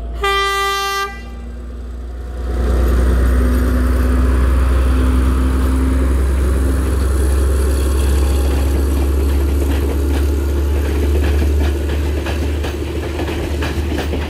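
A diesel locomotive's horn sounds one blast of about a second. Then comes the heavy, steady rumble of the locomotive and train passing close by, with a run of sharp clicks from the wheels over the rails toward the end.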